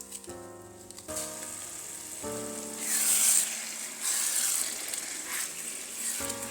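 Food frying and sizzling in a pan, a crackling hiss that grows loudest about three seconds in, over background music.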